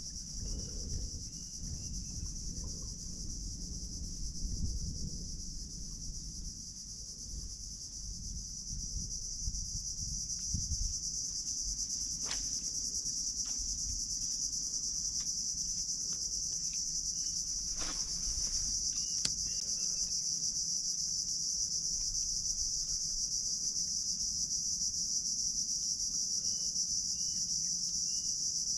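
Steady high-pitched chorus of insects from the mangrove trees, with a low rumble for the first ten seconds or so and a couple of sharp clicks about twelve and eighteen seconds in.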